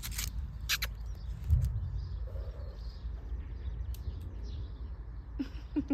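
Outdoor ambience with a steady low rumble on the microphone, a few sharp clicks near the start and a dull thump about a second and a half in. Birds chirp faintly in the background.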